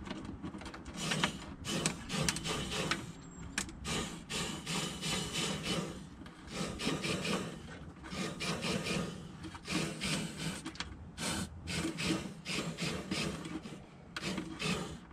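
Irregular scraping and rubbing as the Fluid Film aerosol can's long plastic extension hose is worked through the inside of a truck's rocker panel while it is sprayed and slowly pulled out.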